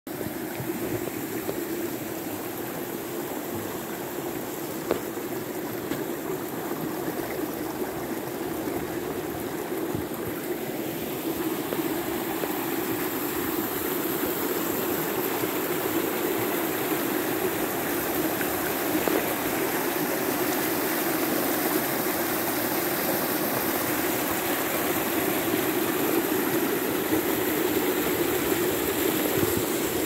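A rocky stream rushing and splashing over a small cascade, a steady sound of running water that grows a little louder about halfway through.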